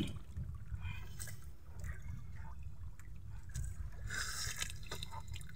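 Water lapping and trickling around a small fishing boat over a low steady rumble, with a few faint splashes and knocks; the strongest comes a little past four seconds in.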